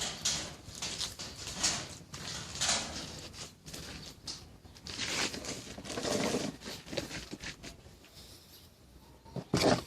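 Hands and tools working on a pop-up toaster: irregular scraping, rustling and small clicks of handled parts, with one louder knock near the end.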